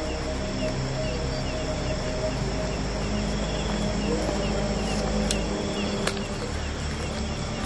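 Night-time insect chorus in rice paddies: crickets chirping in a regular, rapid rhythm over a steady background hiss.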